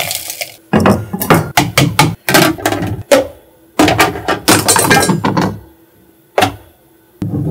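A kitchen utensil knocking and clinking against containers while frozen lime zest is broken off and added to a jar: a quick, uneven run of knocks for about five seconds, then a single knock.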